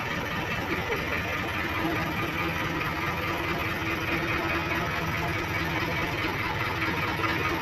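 JCB 3DX backhoe loader's diesel engine running steadily at low revs.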